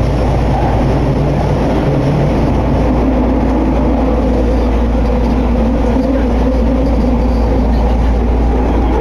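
Nagahori Tsurumi-ryokuchi Line linear-motor subway train running between stations, heard from inside the carriage: a loud, steady running rumble. A low hum gives way about three seconds in to a higher steady tone.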